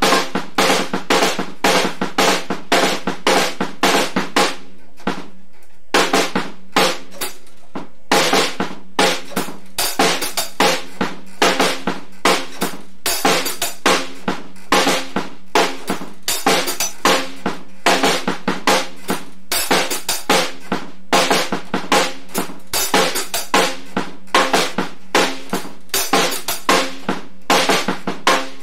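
Fender Starcaster drum kit played in a steady, repeating beat: snare, bass drum and cymbals, with a brief break about five seconds in before the beat picks up again.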